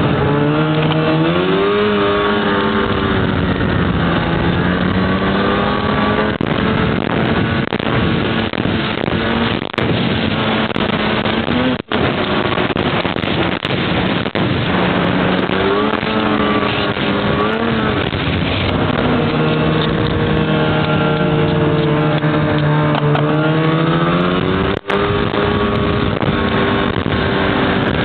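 Snowmobile engine running under way, its pitch rising and falling with the throttle, over a steady rush of wind and track noise. The sound drops out for an instant twice, just before halfway and near the end.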